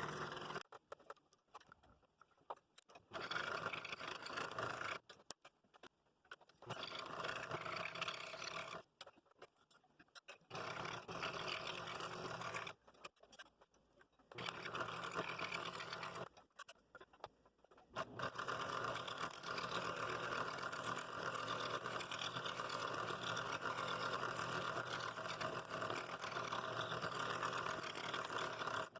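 Scroll saw running and cutting 3/8-inch walnut. It comes in several runs of about two seconds, broken by near-silent gaps, then runs steadily for about the last eleven seconds.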